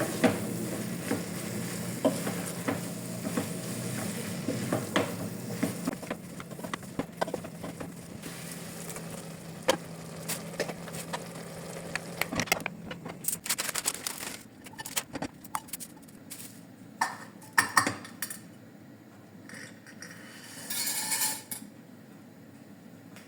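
Ground beef sizzling as it fries in a pan, stirred with a utensil that clicks and scrapes against the pan, over a steady low hum. About halfway through the sizzling and hum stop, leaving scattered clinks and knocks of pots and utensils and a short rush of noise near the end.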